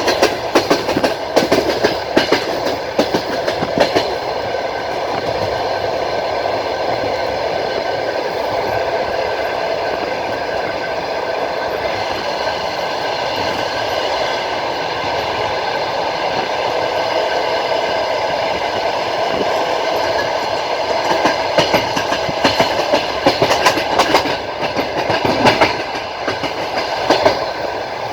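Passenger train running at speed, heard from inside a carriage: a steady rumble and hiss, with groups of rhythmic wheel clacks over rail joints in the first few seconds and again near the end.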